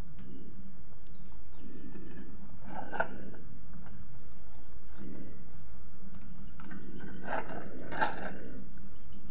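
Plastic toy truck being handled and tipped over on a hard floor, with a knock about three seconds in and a cluster of knocks and scrapes near the end. Birds chirp faintly throughout, over a steady low hum.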